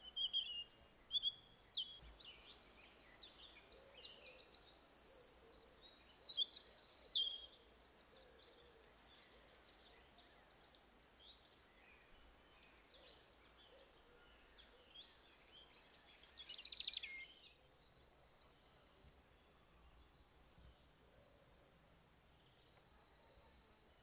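European robin singing: three loud bursts of quick, varied, high warbling phrases, one at the start, one about six seconds in and one about sixteen seconds in, with softer song between them and little after the last.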